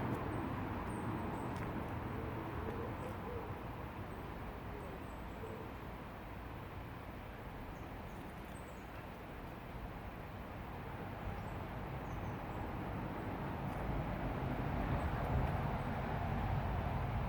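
River water flowing steadily, with faint, scattered high bird chirps.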